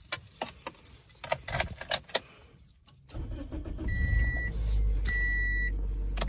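A Toyota car's engine is started and settles into a steady idle. Before it, a few sharp clicks and rattles are heard. From about four seconds in, a dashboard warning chime beeps at an even pace, about once every second and a bit.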